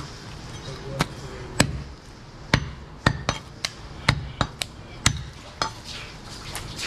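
Butcher's cleaver chopping mutton on a wooden log chopping block: a dozen or so sharp chops at an uneven pace.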